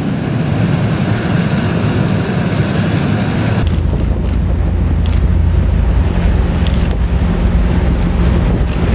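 Harbour wind buffeting the microphone over a steady low machine hum. About three and a half seconds in the sound cuts to a heavier, deeper rumble of wind on the microphone.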